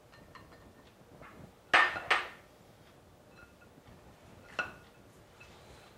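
Knocks on a glass mixing bowl of chopped vegetables: two sharp ones in quick succession about two seconds in and a lighter one near the end, with a few faint clinks in between as a spatula works in the bowl.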